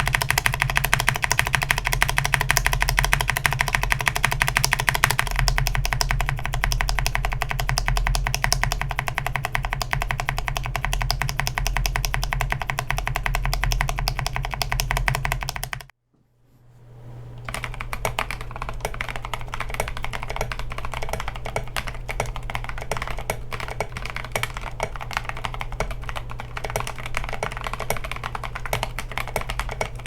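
Tactile mechanical keyboard switches clacking under rapid, continuous key presses: first Kailh Polia and Unpolia 4T (Polia housing, Gazzew U4T stem) switches. After a brief cut to silence about halfway through, typing on Boba U4T switches follows.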